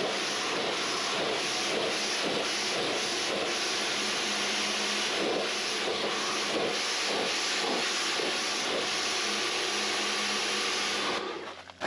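Pressure washer spraying water onto the car's paintwork, rinsing off the tar and glue remover: a steady hiss that cuts off suddenly near the end.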